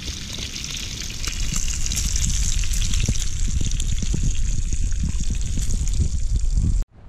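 Bacon sizzling and crackling in a steel skillet on a propane camp stove: a steady hiss full of small pops. A low rumble underneath grows louder about a second in.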